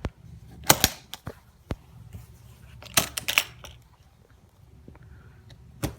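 Latches of a hard-shell guitar case being snapped open one by one: a series of sharp metallic clicks and snaps, the loudest about a second in, around three seconds in, and near the end.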